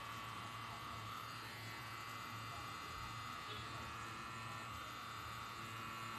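Electric tattoo machine running steadily with a high buzz while the needle works on skin.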